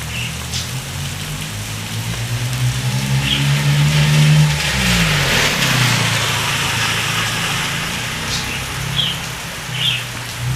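Heavy rain falling steadily. A car drives past about four to five seconds in, its engine note swelling and then dropping in pitch as it goes by. There are a few short bird chirps.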